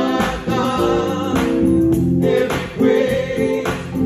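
Male vocal trio singing a gospel song in harmony, holding long notes, with keyboard accompaniment.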